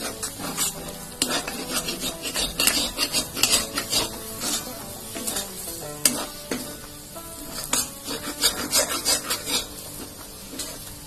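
Metal spatula scraping and knocking against a steel kadai in quick, irregular strokes while stirring and mashing a soft vegetable-and-cheese stuffing, over a low sizzle from the mixture cooking in the hot pan.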